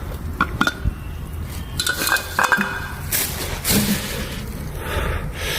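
Cookware and utensils clinking and knocking against each other, several separate clinks with a short ring, between short hissing swells.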